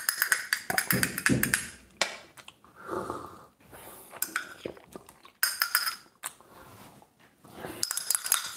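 Metal teaspoon stirring briskly in a small ceramic espresso cup, clinking rapidly against the sides with a bright ringing, in three spells: at the start, again around the middle, and near the end.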